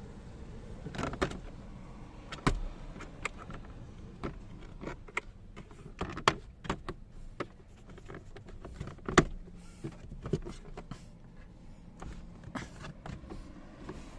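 Irregular plastic clicks, knocks and rattles as the passenger-side glove compartment of a Toyota ist is taken out of the dashboard, with one louder knock about nine seconds in.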